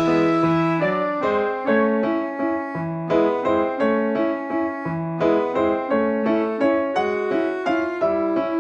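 Background music played on a keyboard instrument such as a piano: a melody of struck notes at a steady pace of about four a second.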